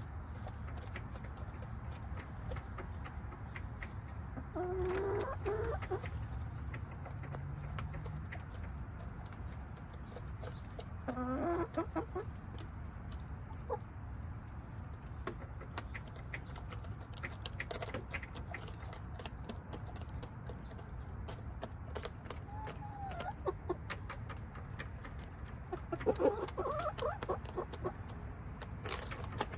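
Backyard hens clucking, with a handful of short calls spread out over several seconds and scattered faint ticks between them, over a steady high hiss.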